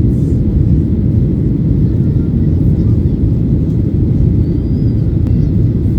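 Steady low rumble of noise inside a moving vehicle, even in level throughout, with a faint click about five seconds in.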